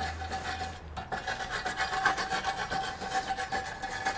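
Steel wire brush scrubbed back and forth along a rusty ribbed steel bar, scraping off rust: repeated scratching strokes with a short pause about a second in.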